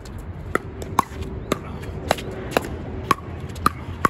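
Pickleball paddles striking the plastic ball in a quick rally, eight sharp pops about two a second, with wind rumble on the microphone underneath.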